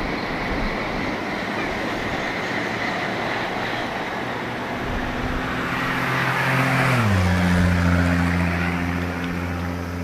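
A vehicle passes close by, its steady hum rising in loudness and dropping sharply in pitch about seven seconds in as it goes past, over a constant background rush.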